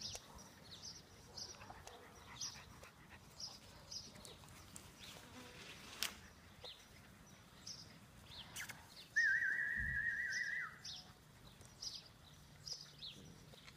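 Small birds chirping over and over. A little past the middle, a single high wavering whistle-like tone lasts about a second and a half and dips at its end.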